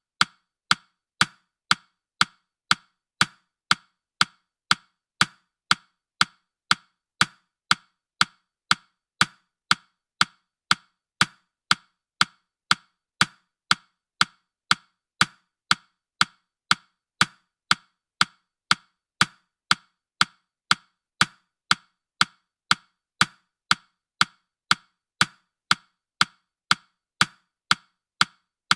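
Clock-tick sound effect of a countdown timer: sharp, evenly spaced wooden-sounding ticks repeating steadily without a break.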